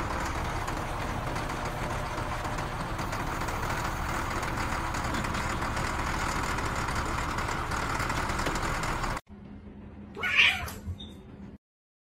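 A kitten meowing over a motor grader's engine running steadily. The engine noise cuts off about nine seconds in, followed by one short, higher-pitched sound about a second later, then silence.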